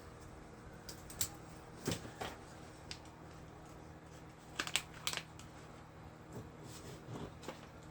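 Scattered light taps and clicks of small gift items and packaging being handled and set in place, the loudest a quick cluster about five seconds in, over a faint steady hum.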